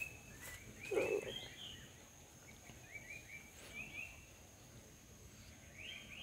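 Faint outdoor small-animal calls: short chirps repeating in little runs, over a thin, steady high whine. A brief, louder low sound comes about a second in.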